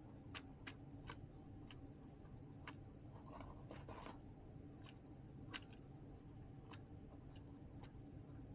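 Faint, irregular taps and clicks of baby chicks pecking and scratching in a plastic tote brooder, with a brief rustle about three and a half seconds in, over a faint steady hum.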